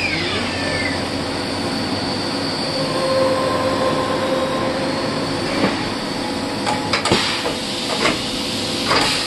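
Automatic tool changer of a VMF 1000 CNC vertical machining centre exchanging tools over a steady machine hum. A falling whine at the start is the spindle winding down. Several sharp clunks and knocks in the second half come from the changer arm grabbing and swapping the tools.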